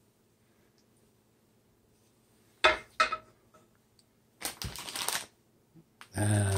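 A wooden spatula clacks twice as it is set down in a frying pan, then a plastic bag of shredded cheese crinkles as it is picked up and handled.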